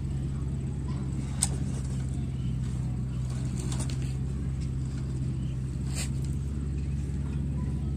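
Small electric motor and plastic gears of a battery-powered toy tractor running with a steady hum as it tows a toy truck. A sharp click sounds about a second and a half in, and another near six seconds.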